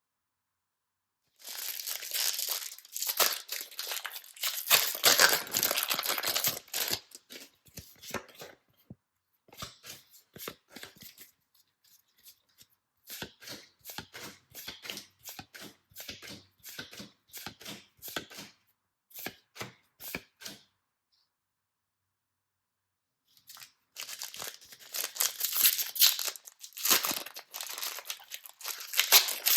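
Wrapper packaging being torn open and crinkled by hand, in two long bursts. Between them come a run of short, dry ticks and rustles and a brief quiet gap.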